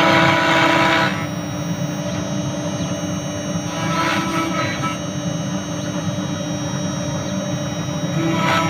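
CNC router running steadily while engraving, a high steady whine over a low hum, with the rougher sound of the bit cutting louder in the first second and again briefly about four seconds in and near the end.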